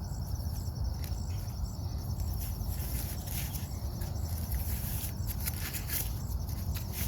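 Insects chirping steadily in high, evenly repeated pulses, over a low rumbling background, with a few brief rustles.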